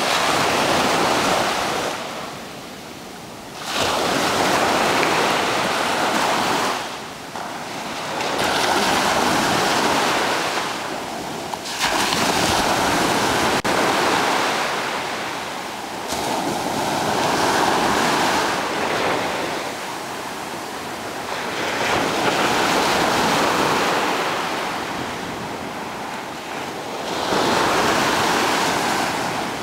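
Ocean surf breaking and washing up the beach, swelling and easing with each wave about every four seconds.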